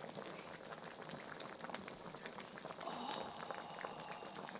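Thick ketchup sauce with prawns simmering in a pan, bubbling with many small, irregular pops as it boils down and thickens.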